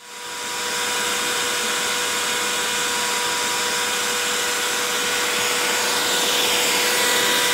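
Handheld electric air blower switching on, spinning up over about a second, then running steadily: a rushing of air with a steady motor whine, a little louder near the end.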